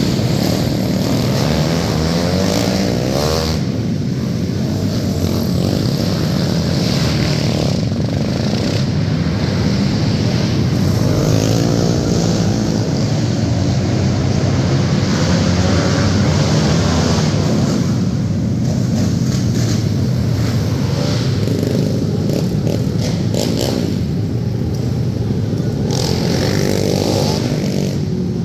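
Several sport ATVs (quads) racing around an indoor dirt track, their engines revving up and down again and again as the machines pass and accelerate out of the turns, with an overlapping drone from the quads further around the track.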